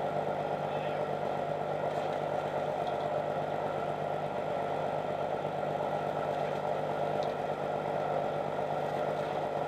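Fishing boat's engine running at a steady, even hum, with a few faint clicks now and then.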